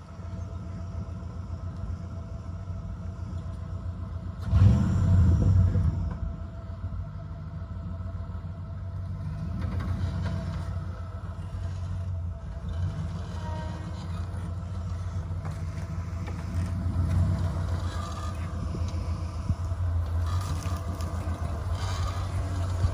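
Lifted off-road truck's engine running low and steady as the truck crawls over a rock ledge, with a loud burst of throttle about four and a half seconds in and a few smaller rises in revs later.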